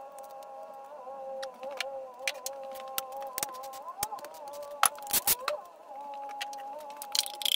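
Background music of sustained tones that shift pitch a few times, over scattered sharp metal clinks and taps of tools and engine parts as connecting rods and pistons are pulled from the engine. The clinks come thickest about five seconds in.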